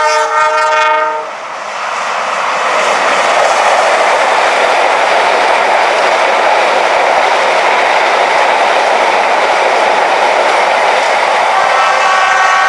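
A train's horn sounds in one short blast of about a second, then the train runs close by with a loud, steady rush of wheels on the rails. A second horn blast, with a different chord, starts near the end.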